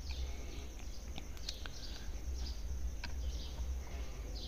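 Quiet background of birds chirping faintly over a low steady hum, with a few light clicks from a screwdriver working the contactor's terminal screws.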